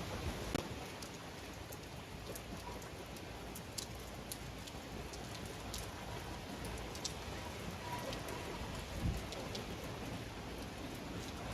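Heavy hurricane rain falling steadily, with many sharp drop hits scattered through it and one louder low thump about nine seconds in.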